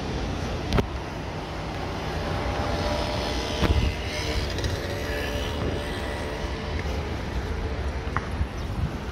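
City street traffic ambience: vehicles running past with a steady low rumble, and a pitched engine note rising in the middle. Two sharp knocks stand out, the louder about three and a half seconds in.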